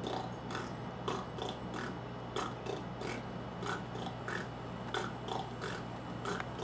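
Slowed-down didgeridoo lip pulse made with the lips alone, away from the instrument: soft, quiet lip pops in an even rhythm of about three a second.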